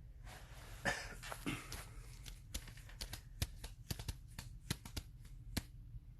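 A short noisy burst about a second in, then a scattered series of sharp clicks and taps, as from handling objects at a desk.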